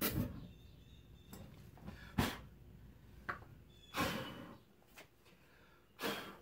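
Work on a lawn tractor tire while trying to reseat its bead: a few sharp knocks, and twice a short hissing burst of air from an air hose at the tire, about four seconds in and again near the end.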